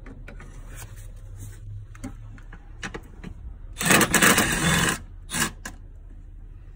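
Cordless power ratchet running for about a second as it spins a bolt loose, then a shorter second burst. A few light clicks of the tool being handled come before it.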